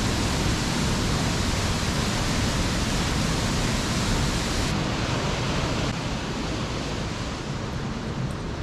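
A waterfall rushing steadily: an even, full hiss of falling water. About halfway through it drops a little in level and loses its highest hiss.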